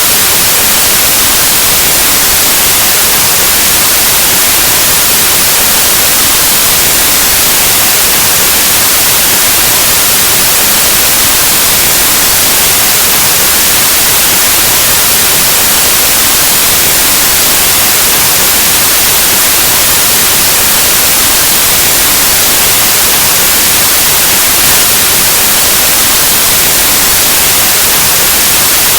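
Steady, loud white noise: an even hiss like analog TV or radio static, unchanging throughout.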